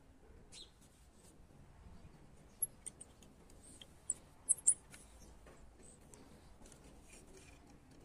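Handling noise from a die-cast toy helicopter turned in the fingers: faint scratching and rubbing, with a handful of sharp little clicks of plastic and metal parts near the middle.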